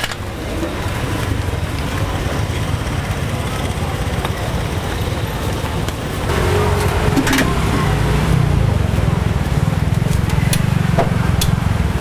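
Outdoor street ambience with a steady low rumble that grows louder about halfway through, faint voices and a few light clicks.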